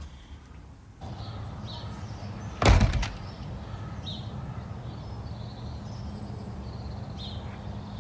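Outdoor ambience: a steady low rumble of distant traffic with a few short bird chirps, broken about three seconds in by one loud thud.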